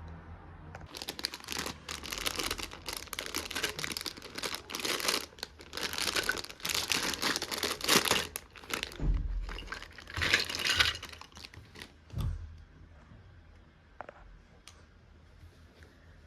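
A run of rustling, tearing and crinkling noises from something being handled, lasting about ten seconds, followed by a few light clicks and taps.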